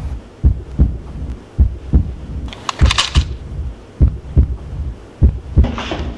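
Heartbeat sound effect: low double thumps, one pair about every second and a quarter, a tension cue on a film soundtrack. A short burst of hissing noise about three seconds in.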